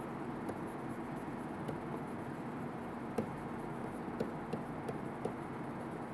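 Stylus tapping and scratching on a tablet screen while handwriting: faint, irregular light clicks over a steady low hum of room tone.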